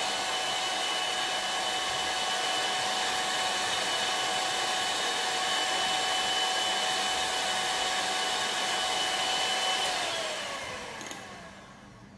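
Electric hand mixer running steadily with a high whine, its beaters whipping instant cappuccino, sugar and hot water into dalgona foam in a glass. Near the end it is switched off and the whine falls away as the motor slows to a stop.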